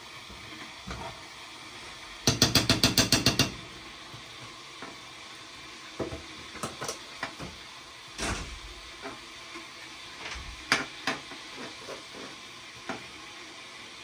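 Metal spoon stirring and scraping in a pan of simmering ramen, with a steady low hiss from the cooking. About two seconds in comes a quick rattle of about nine sharp taps of the spoon against the pan, and scattered single clinks follow.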